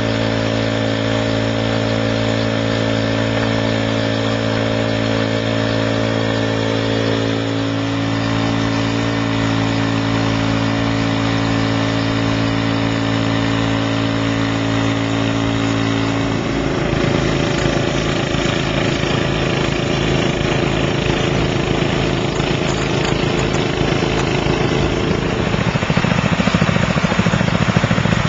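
Gasoline engine of a recreational suction gold dredge running steadily, driving its pump, over the rush of river water. About halfway through the even hum turns rougher and pulsing, and it gets louder near the end.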